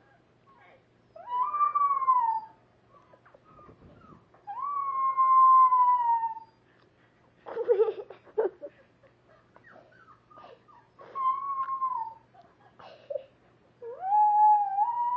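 Half-dachshund, half-pug dog howling: four long howls a few seconds apart, each rising and then falling in pitch, with a cluster of shorter, rougher sounds about halfway through. The last howl is still going at the end.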